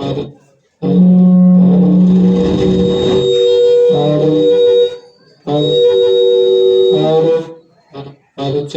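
Ahuja 120-watt amplifier's speaker giving out two long stretches of steady, music-like tones, with short voice-like bursts at the start and near the end. The sound is unclear and nasal, the fault under repair.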